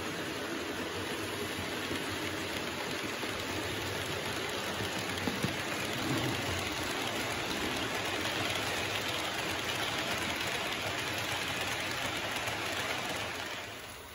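H0-scale model freight train, an electric locomotive hauling a string of red hopper wagons, rolling along the track: a steady rattling hiss of small wheels on rails that grows louder as the wagons pass close, then drops off sharply near the end.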